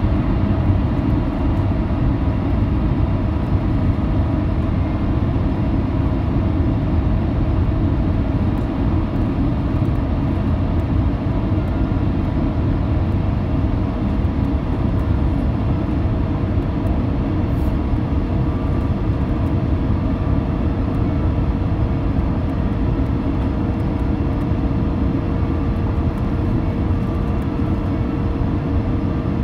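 Steady cabin noise inside an Airbus A350-900 on final approach with the landing gear down: a low, even rumble of airflow and its Rolls-Royce Trent XWB engines at approach power. A faint steady hum rides on top and grows a little stronger about halfway through.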